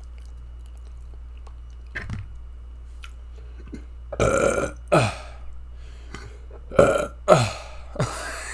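A man burping repeatedly after a big meal of pizza and wings: a long burp about four seconds in, then about four shorter ones, each falling in pitch.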